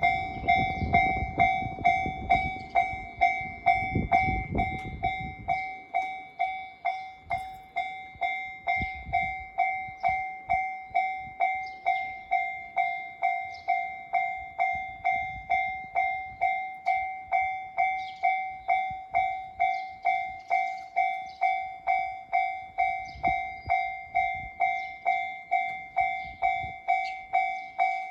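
Japanese railway level-crossing warning bell ringing, about two dings a second, each ring fading before the next. A low rumble runs under it for the first six seconds.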